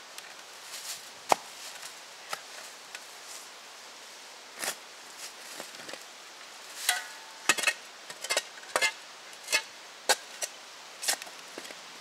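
Hand digger chopping and scraping into leaf-covered forest soil: a string of irregular sharp chops and knocks as a metal-detecting target is dug out, growing busier in the second half.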